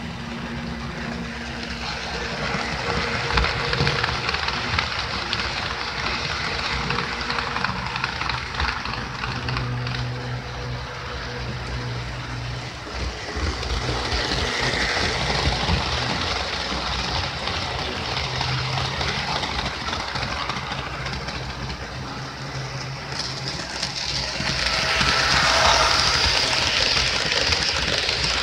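HO-scale model train running on the layout track, a steady rattling and whirring of small wheels and motor that grows louder near the end as the cars pass close by.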